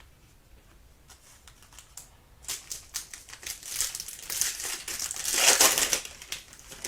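A trading-card pack's foil wrapper crinkling as it is handled and torn open. After a few faint clicks it starts about two and a half seconds in, gets louder and is loudest near the middle, then eases off near the end.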